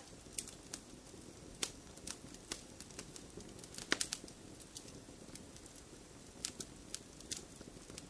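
Campfire burning: irregular sharp crackles and pops over a steady low hiss, with a quick cluster of louder pops about halfway through.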